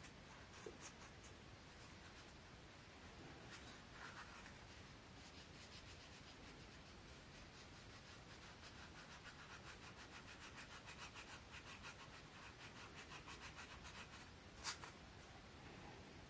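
Faint, rapid scratchy rubbing of hands working the nylon/spandex soft-shell fabric of a Montane trail gaiter, with one sharper click near the end.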